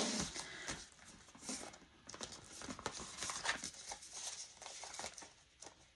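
Faint, irregular rustling and light tapping of paper being handled: sheets, binder pages or banknotes moved about on a table. It dies down near the end.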